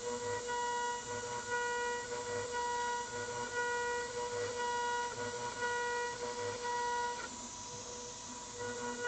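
CNC 6040 router spindle at 28,000 RPM milling aluminium with an end mill. It makes a high, steady cutting whine over a hiss, swelling and easing about once a second as the tool spirals down a helical drilling path. About seven seconds in the whine stops while the tool lifts clear and only the hiss remains, and the whine returns near the end.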